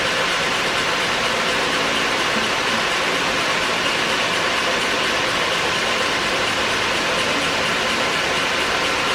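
Leblond Dual Drive engine lathe running under power, its spindle and gear train turning with a steady mechanical whir.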